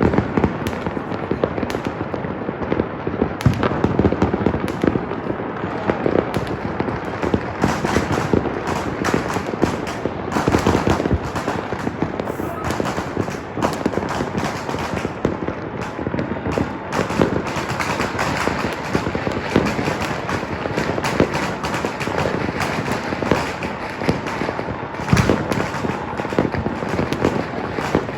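Dense, continuous barrage of fireworks and firecrackers, many overlapping cracks and bangs at once with no break, loud throughout.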